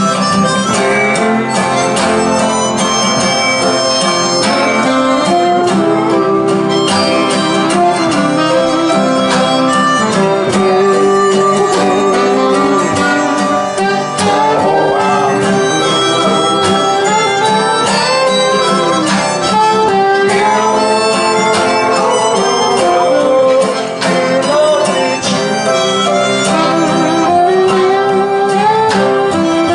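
Blues harmonica solo with bending, wailing notes over strummed acoustic guitars, upright bass and drums.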